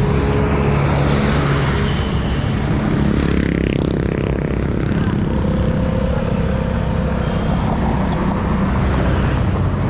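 Vespa S125 scooter's single-cylinder four-stroke engine running at a steady cruise, under loud wind and road rumble on the handlebar camera. A louder whoosh swells and fades about four seconds in.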